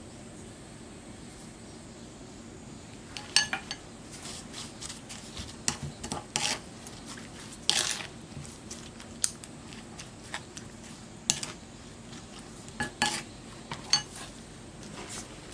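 Metal utensils clinking and knocking against dishes and cookware: irregular clatters with a short metallic ring, starting about three seconds in.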